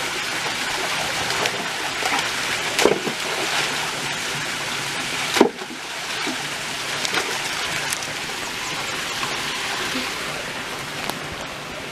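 Steady rushing of a rocky stream and its small cascade, with a few splashes and knocks as dogs move through the shallow water. A sharp knock comes about five and a half seconds in, after which the water is a little quieter.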